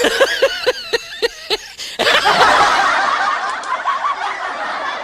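Laughter: one person laughs in short, even 'ha' pulses, about four a second, then about two seconds in a louder, denser laughter of several voices takes over.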